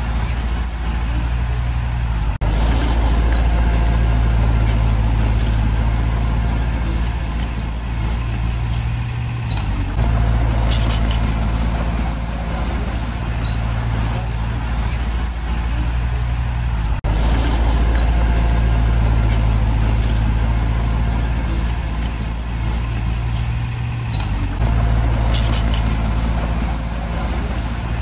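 Heavy diesel engine of a bulldozer running steadily with a deep drone, its pitch and load easing and building; a thin high whine comes and goes over it.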